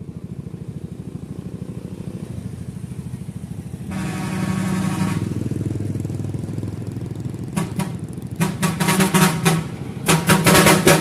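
A vehicle's engine runs while its four-foot trumpet horn sounds: one held blast of about a second, about four seconds in, then from past the middle a string of rapid, pulsing horn blasts that grow louder.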